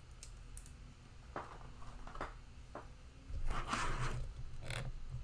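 Handling noises: a few soft clicks, then a louder rustling scrape about three and a half seconds in and a shorter one just before the end, over a low steady hum.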